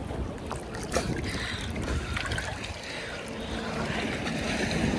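Seawater sloshing and lapping right against a phone's microphone held at the surface, with a low rumble and small splashy clicks.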